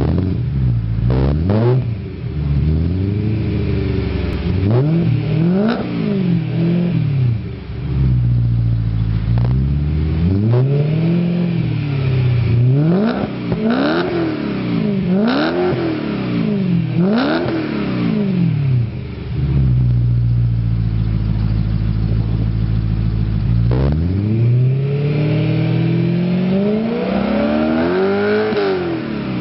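BMW E90/E92/E93 M3's S65 4.0-litre V8 revved in place through a performance stainless steel exhaust. A run of short, quick revs rises and falls back to idle, then the engine idles steadily for a few seconds, and near the end one longer rev climbs slowly to a peak and drops away.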